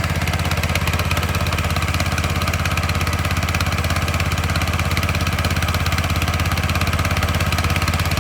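An engine running steadily at idle, with a fast, even pulse and most of its sound deep and low.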